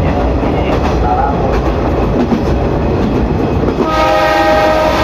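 JR 105 series electric train rumbling with wheel and rail noise; about four seconds in its horn sounds, a steady chord of several pitches held for a little over a second.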